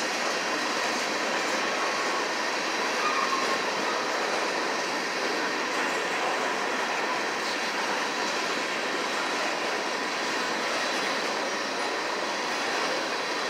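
Loaded open-top freight cars of a CSX trash train rolling past close by: a steady noise of steel wheels on rail with a faint, thin high squeal from the wheels.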